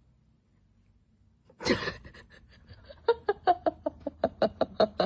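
A sudden loud burst about one and a half seconds in, then a person laughing hard in a rapid string of short 'ha' sounds, about five or six a second.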